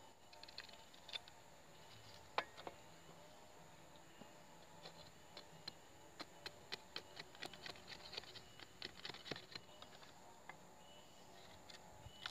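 Machete chopping lightly at a thin wooden stick on a wooden block: one sharper knock about two seconds in, then a run of quick, light taps, a few a second, for several seconds.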